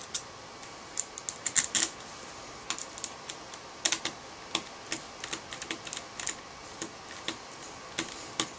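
Screwdriver clicking against the screws of a Version 3 airsoft gearbox shell as they are driven back in: irregular light clicks, several a second, some in quick clusters.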